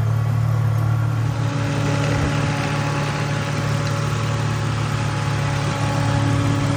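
Holden VY Commodore's 3.8-litre Ecotec V6 running at a steady idle, freshly reinstalled after new engine mounts, water pump, rear main seal and sump gasket, and running well. A hiss comes up about a second in.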